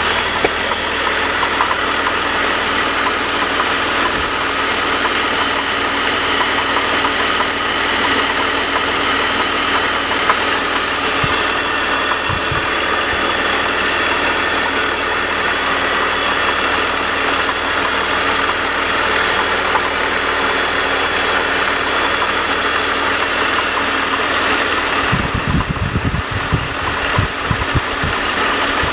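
BMW E46 330i's inline-six idling with a galloping, clanking noise that remains after a new primary timing chain tensioner was fitted. A spell of low thumping comes near the end.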